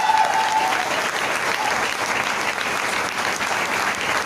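A small audience clapping, dense and steady, with a voice trailing off in the first second.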